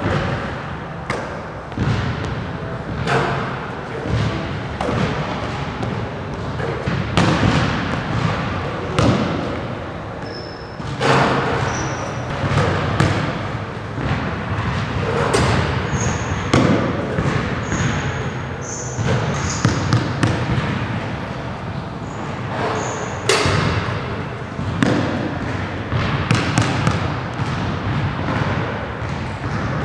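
Basketball thudding on a hardwood gym floor and being caught and passed back in a shooting drill, irregular impacts about every second or two in a large echoing gym. A few brief high squeaks come in the middle.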